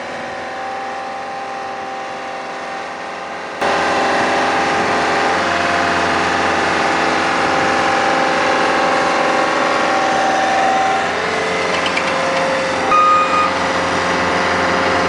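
Heavy machinery's diesel engine running steadily. It gets abruptly louder about three and a half seconds in, and a brief high tone sounds near the end.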